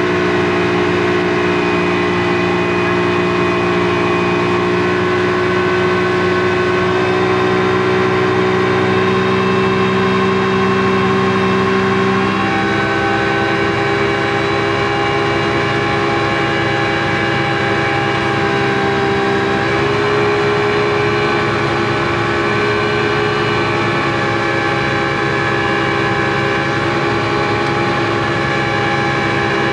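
Speedboat engine running steadily under way, a loud, even drone heard from inside the boat's cabin; its note drops a little about twelve seconds in and shifts again some seconds later.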